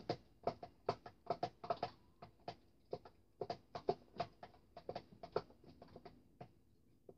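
Metal spoon clicking and scraping against the sides of a clear plastic storage box while stirring a glue mixture for slime, in quick, irregular clicks a few times a second.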